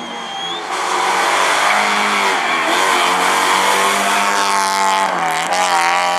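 Rally car engine running hard under load, its note dipping and climbing again twice, about two and five seconds in, over a steady rush of road noise.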